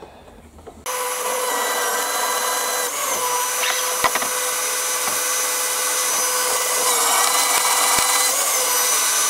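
Electric drill in a drill press stand running steadily while a 13/64 in bit drills a tapping hole for an M6 thread through a steel bar. The motor whine starts about a second in and dips slightly in pitch a couple of seconds later, with two short clicks along the way.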